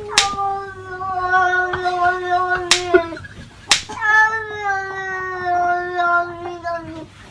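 A cat yowling in two long, drawn-out calls, each held at a near-steady pitch that sags slightly toward its end. The first stops about three seconds in and the next starts about a second later. A few sharp clicks fall around the break between the calls.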